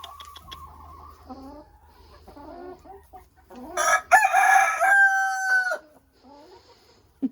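Hens clucking softly, then a rooster crows once, loudly, starting a little under four seconds in and lasting about two seconds, ending on a held note.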